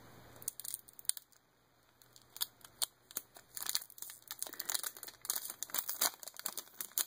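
Crinkling and small tearing crackles of a Pokémon card booster pack wrapper being slowly peeled open by hand, in quick irregular crackles with a short pause about a second in.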